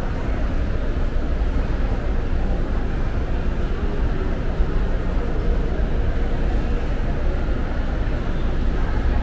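Steady city traffic noise: an even, unbroken rumble of passing vehicles, heaviest in the low end.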